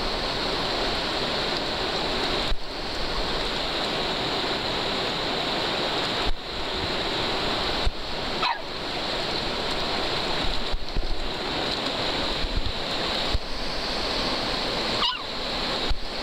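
Steady rushing of a fast river's whitewater rapids, dipping briefly a few times.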